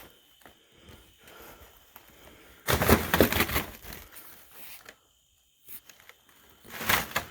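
Rustling and crinkling handling noise: soft scuffing at first, then a loud, dense spell of rustling and crackling a little under three seconds in, and another short rustle near the end.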